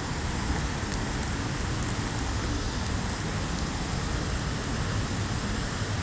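Steady rush of a waterfall: an even, unbroken wash of falling water with a heavy low rumble.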